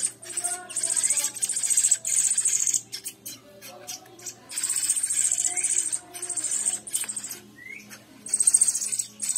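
Hand-reared young sabiá thrushes giving harsh, rapidly pulsed begging calls in bursts of about a second, six times over. They are hungry chicks asking to be fed. A short rising chirp comes near the end.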